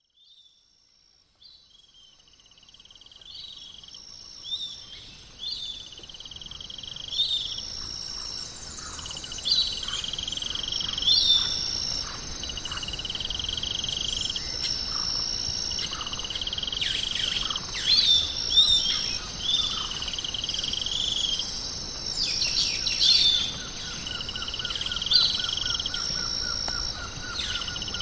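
Tropical forest ambience: a steady high insect drone with birds chirping and calling over it again and again. It fades up from silence over the first several seconds.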